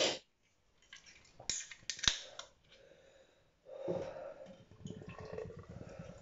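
Handling noises: two sharp clicks about one and a half and two seconds in, then rustling with small knocks through the second half.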